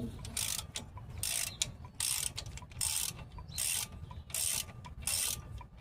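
Hand ratchet clicking in a steady run of short strokes, about one every 0.8 s, as a stubborn bolt on the truck's brake assembly is worked loose.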